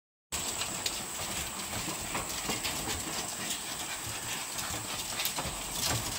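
Small dogs' paws clicking and tapping on a slatted bamboo floor as they crowd around to be fed, many quick irregular taps, over a steady high-pitched whine.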